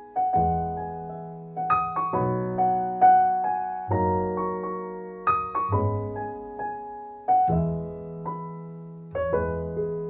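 Background piano music: notes and chords struck and left to ring out, with a low bass note about every two seconds.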